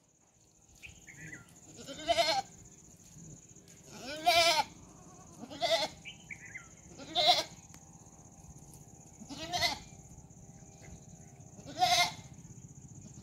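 Goats bleating: six loud calls, one every second or two, some with a wavering pitch.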